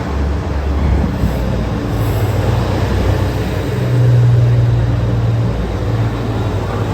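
JR Central HC85 series hybrid diesel train pulling into a platform, giving a steady low drone that swells for a moment about four seconds in.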